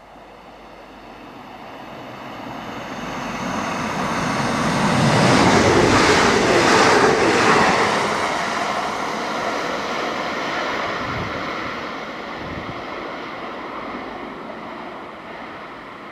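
TransPennine Express Class 185 diesel multiple unit passing through the station: its noise builds for about five seconds, is loudest around six to eight seconds in, then fades away as the train goes off down the line.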